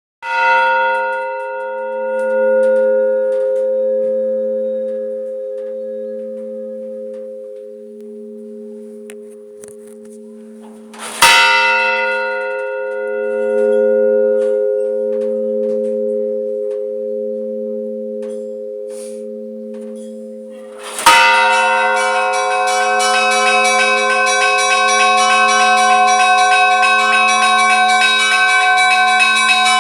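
A large church bell struck three times, about ten seconds apart, each stroke ringing on a long time with a slow wavering hum. From the third stroke, smaller bells join in a fast, continuous peal.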